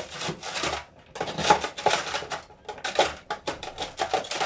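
Kitchen knife chopping frozen bell pepper in a plastic food container: an irregular run of sharp knocks and crunches, several a second.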